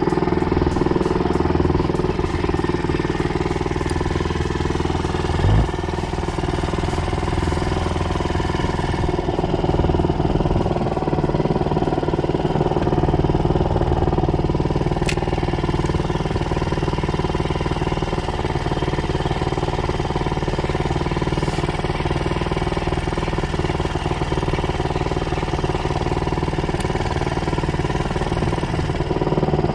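Small 2-horsepower outboard motor running steadily at an even speed. There is one low thump about five and a half seconds in.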